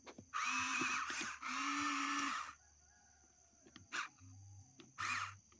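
Remote-control toy excavator's electric motors and gears whirring in two bursts of about a second each as the arm moves, with shorter, quieter whirs near the end.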